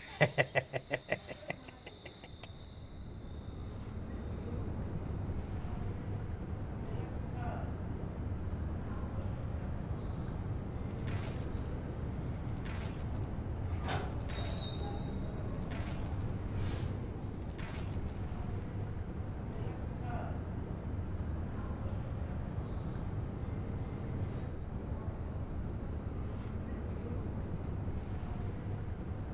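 A cricket chirping in a rapid, even pulse over a low background rumble. A short burst of a man's laughter comes at the very start.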